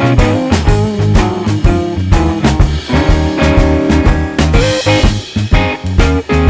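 Background music: a rock track with electric guitar, bass and drum kit playing a steady beat.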